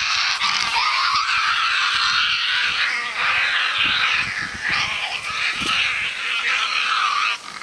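Young Tasmanian devils screeching while they play-fight: several high, wavering cries overlapping without a break, cutting off suddenly near the end. It is play, not a real fight.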